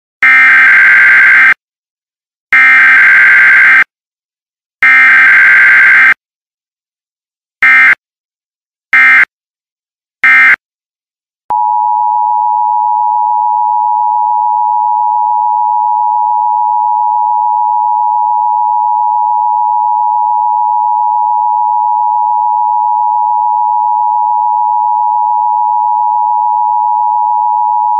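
Emergency Alert System tones: three harsh digital SAME header bursts about a second long, then three short bursts. About eleven seconds in, the steady two-tone EAS attention signal starts and holds.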